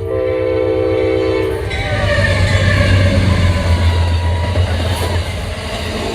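Train horn sounding a chord for about two seconds, then the train passing close by with a loud rumble of its wheels and cars that peaks a few seconds in; the horn starts again right at the end.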